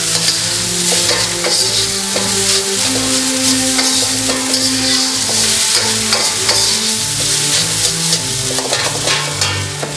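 Fried rice sizzling in a hot wok while it is stirred and tossed, a steady frying hiss with scraping strokes, just after sweet soy sauce has gone in. Steady low tones that change pitch every second or so run underneath.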